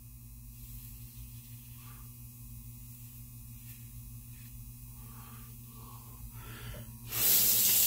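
Quiet strokes of a Blackland Vector single-edge razor on lathered stubble over a steady electrical hum. About seven seconds in, a sink faucet is turned on and runs loudly.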